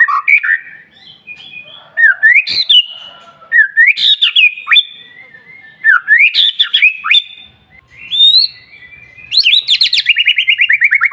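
White-rumped shama (murai batu) singing: loud whistled phrases with sweeping glides, coming in bursts a second or two apart. Near the end the song breaks into a fast trill of rapid repeated notes that slides slowly down in pitch.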